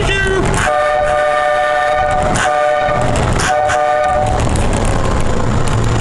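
Vehicle horn honking inside a wooden covered bridge: a steady two-note blast held for a few seconds, a short break, then another blast that stops a little past halfway, leaving the vehicle's running and road noise.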